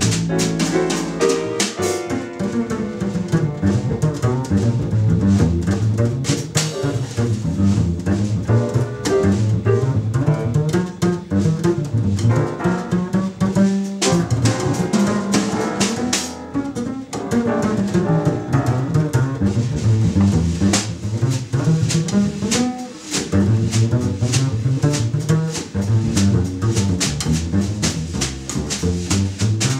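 Jazz duo of upright double bass and drum kit: the bass is plucked in a busy line of changing low notes while the drums and cymbals play around it.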